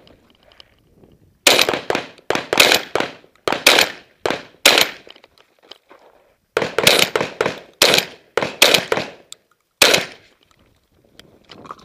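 Benelli shotgun fired rapidly, about a dozen loud shots in two quick strings with a pause of nearly two seconds between them. After the last shot, near the end, come a few faint clicks as shells are loaded.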